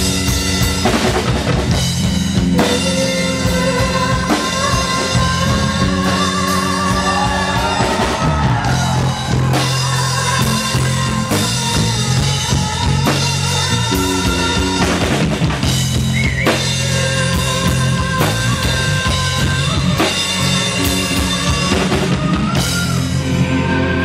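Live rock band playing loudly: a drum kit with a driving beat, bass and electric guitar.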